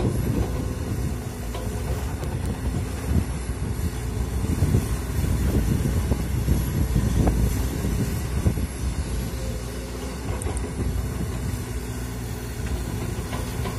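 Komatsu PC200 hydraulic excavator's diesel engine running steadily while the machine digs and swings its arm.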